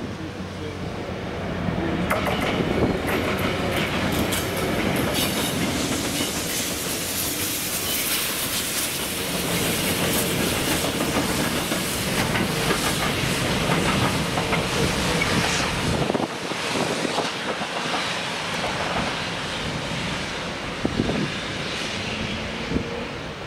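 A train running along the rails, getting louder about two seconds in and easing near the end, with repeated clicks of its wheels over the rail joints.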